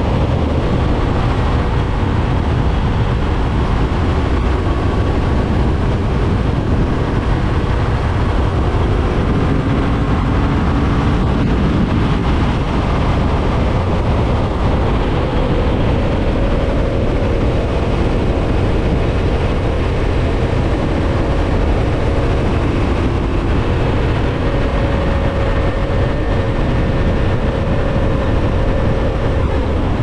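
Heavy wind rush over a helmet-mounted camera at highway speed, around 80 mph. Under it runs the steady drone of a Yamaha MT-07's parallel-twin engine cruising in sixth gear, its pitch shifting slightly with the throttle.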